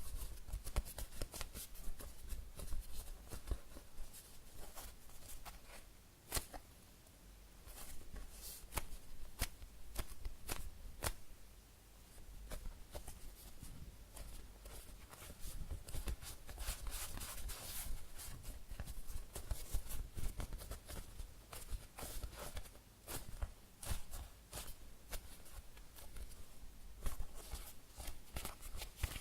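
Hands squeezing and pressing a very slow-rising foam cheesecake squishy toy: soft crackling and rustling with scattered sharp clicks, easing off briefly twice.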